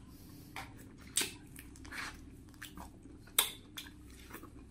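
Eating a juicy red grapefruit wedge: a scatter of short wet smacks and clicks as the flesh is bitten off the rind and chewed, sharpest about a second in and again past three seconds.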